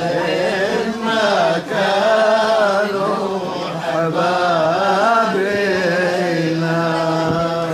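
A man singing a Levantine mijana folk verse, drawing out long ornamented notes that waver up and down in pitch.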